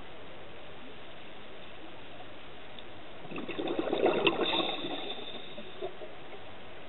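A scuba diver's exhaled bubbles from the regulator, heard underwater: one bubbling burst about three seconds in that lasts around two seconds, over a steady underwater background noise.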